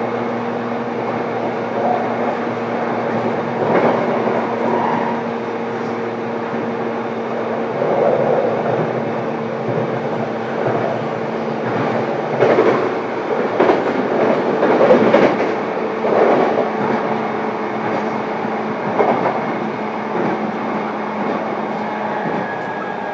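Running noise inside a JR East E233-7000 series electric train, recorded in motor car MoHa E233-7233: a steady hum under the rumble of the wheels, with groups of clicks from the wheels crossing rail joints. Near the end the hum stops and a higher whine starts, slowly falling.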